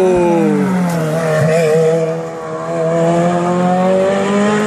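Race car engine running hard: its pitch drops over the first second as it slows, then holds steady and slowly climbs as it pulls on.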